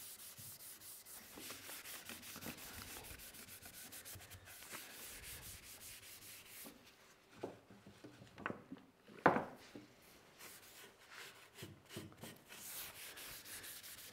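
Cloth rubbed briskly back and forth along a bare wooden frame, wiping on Danish oil: quick, even rubbing strokes, with a couple of sharp knocks just past the middle, the second the loudest.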